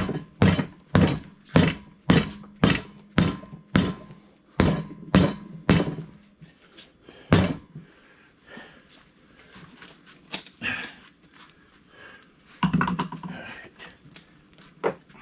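About a dozen sharp, evenly spaced knocks, a little under two a second, each with a short low ring, stopping about seven and a half seconds in; fainter scattered handling noises follow.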